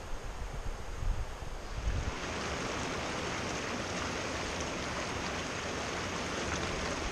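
Low, uneven wind rumble on the microphone, then from about two seconds in it changes abruptly to the steady rush of a shallow, rocky mountain creek.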